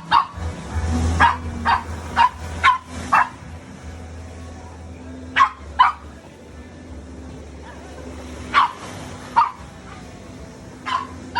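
A dog barking repeatedly in short groups, about a dozen sharp barks with pauses between, over a steady low hum.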